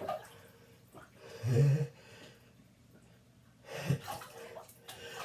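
A person's breathing and gasps while a sneeze builds, part of a sneezing fit brought on by chhinkni. A short low groan comes a bit over a second in, and a sharp gasping breath comes near four seconds.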